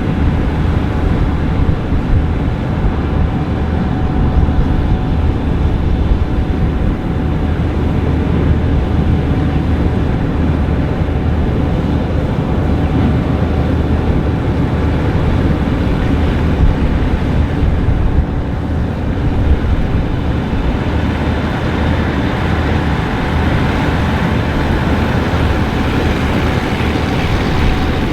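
Gleaner combine harvester running steadily while harvesting wheat: a deep, continuous engine drone with steady whining tones above it.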